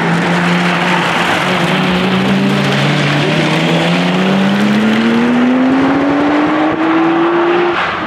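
1992 Nissan Skyline GTS-t's turbocharged straight-six pulling hard under load. The note holds level for about three seconds, then climbs steadily as the car accelerates, and drops suddenly near the end.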